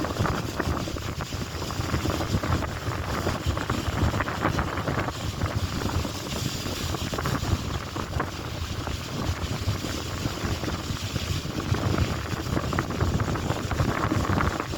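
Strong wind buffeting the microphone: a low, gusty rumble that rises and falls without a break.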